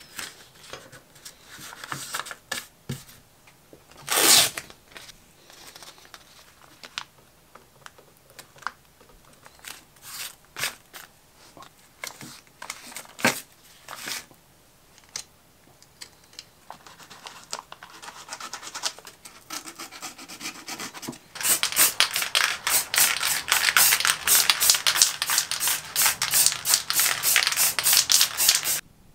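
Masking tape rustling, crinkling and tearing as it is pressed and smoothed onto a pistol grip, in scattered short scrapes. About 21 seconds in, a louder continuous hiss with a fast flutter starts and stops abruptly near the end: aerosol spray paint being sprayed.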